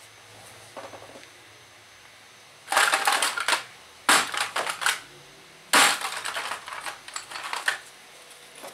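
Three loud bursts of dry, crackling scraping, each starting sharply: the first two about a second long, the last about two seconds.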